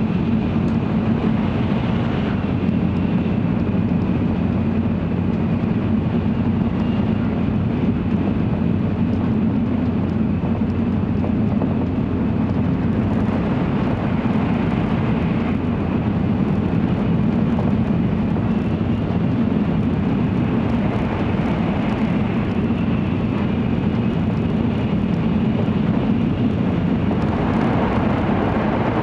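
Steady low rumble of an N700-series Shinkansen at speed, heard inside the passenger cabin as the train runs through a tunnel.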